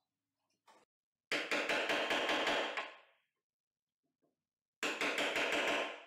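Hammer rapidly tapping a sharp wood chisel around the marked hinge outline on a door edge, scoring out the hinge slot. The strikes come in two quick runs of about six a second, the second starting roughly two seconds after the first ends.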